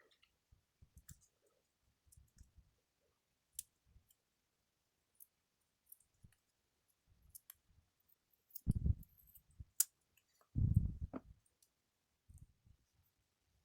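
Small watch parts and tools being handled on a work surface: scattered light clicks and taps, with two louder dull bumps past the middle and a sharp click between them.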